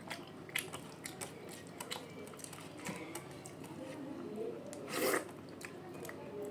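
A person chewing and eating a meal of rice and fried vegetables, with many small wet mouth clicks and a louder crunchy burst about five seconds in.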